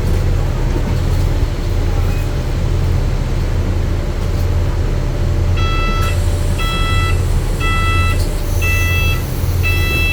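Double-decker bus idling with a steady low engine hum. About five and a half seconds in, the exit door's warning beeper starts, one beep a second, with a hiss of air as the Ventura exit door works.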